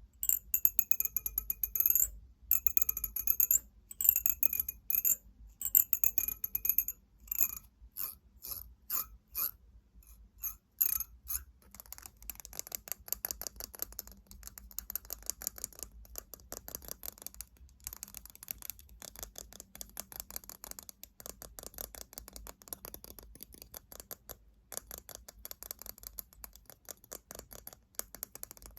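Fingernails tapping rapidly on hard objects. For the first several seconds the taps come in quick bursts on something that rings. From about twelve seconds in they turn into a continuous fast patter of light clicks.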